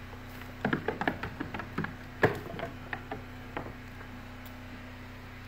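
Young goats browsing on a pile of evergreen branches: irregular twig snaps and rustles for about three seconds, the loudest a sharp snap about two seconds in, then only a faint steady hum.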